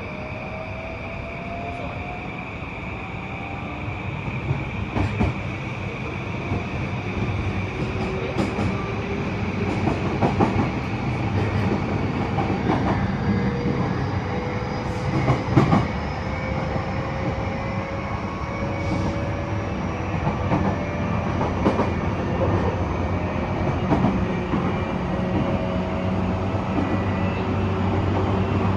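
Interior running sound of an E235-1000 series electric train, with faint tones from its Mitsubishi full-SiC VVVF inverter and motors slowly rising in pitch as it gathers speed, and wheels clicking and knocking over the rails. The running noise grows gradually louder.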